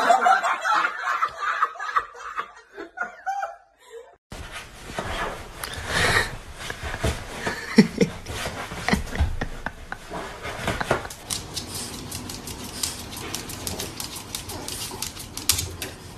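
A person laughing in short bursts. After a cut about four seconds in, there is a steady noisy background with scattered clicks and knocks.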